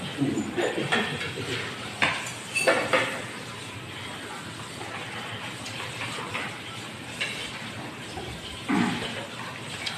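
Plates and cutlery clinking and knocking as dishes are collected and stacked on a table, with several sharp clinks in the first three seconds and another near the end.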